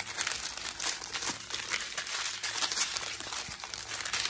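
Small plastic bags of diamond-painting drills crinkling and rustling as they are handled.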